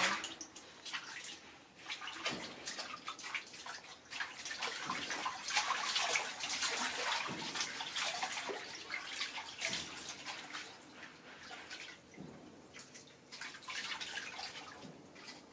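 Water splashing and sloshing in steel basins as a young monkey swims and paddles in a large basin of water and a baby monkey is washed by hand in a smaller one. The splashing is irregular, busiest in the middle seconds and easing off near the end.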